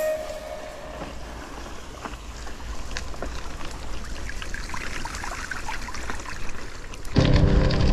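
Gravel bike tyres rolling over a wet dirt track and splashing through puddles, with a steady low rumble and scattered small ticks of grit and water. Music comes in loudly near the end.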